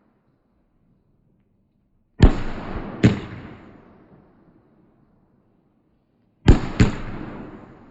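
Fireworks exploding with loud bangs: a pair of bangs close together about two seconds in, and another pair about six and a half seconds in, each pair trailing off over a second or two.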